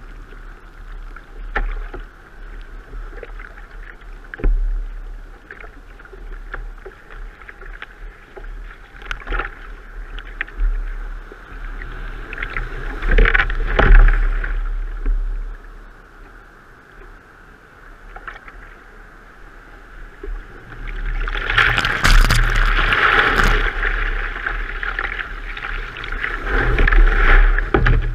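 Surf and white water rushing and splashing against a sea kayak's bow, with paddle splashes, heard from a camera on the kayak's foredeck right at the water. The rushing surges loudly for a moment about halfway through, then swells again and stays loud for several seconds near the end as the kayak runs through broken surf.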